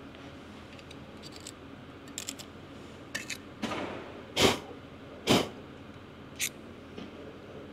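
Hand tool working on the metal hub of a tractor fan drive: a few faint clicks, then several short scraping noises in the second half, as a pick is worked around the seal bore.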